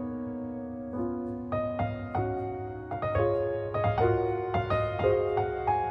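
Background music: soft piano playing sustained chords and a slow melody.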